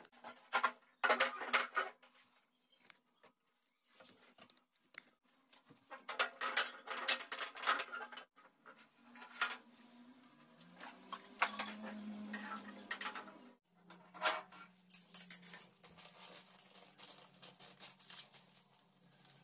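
Intermittent scraping and rubbing from hand work on a granite countertop, in short clusters of strokes with pauses between. A thin plastic parts bag crinkles near the end.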